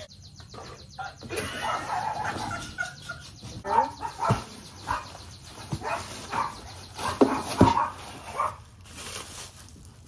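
Plastic packing wrap and foam crinkling and rustling as parts are unwrapped from a cardboard box, with a few short pitched sounds and sharp knocks over it.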